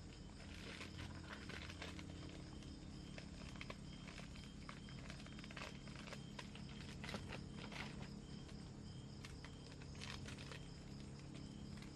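Forest ambience: faint repeated insect calls over a low steady hum, with scattered small clicks and crackles throughout.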